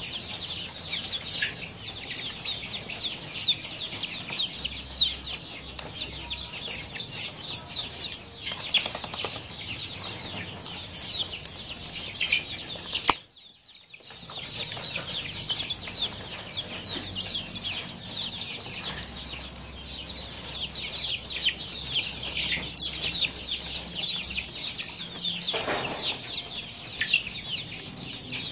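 A dense flock of white broiler chickens peeping continuously, many short, high, falling calls overlapping. The sound cuts out for under a second about halfway through.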